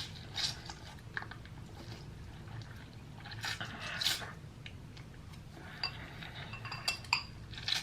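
Noodles being eaten: slurping and chewing in short bursts, with a few sharp clinks of utensils against dishes near the end.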